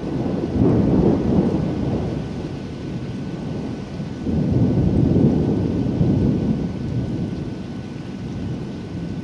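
Thunder rumbling in two long rolls. The first peaks about a second in; the second swells about four seconds in and fades away slowly. A steady hiss of rain runs underneath.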